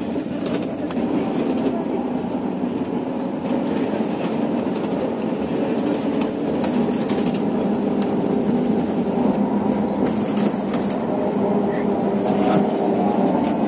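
Steady running noise inside a moving coach bus, with faint scattered clicks and rattles.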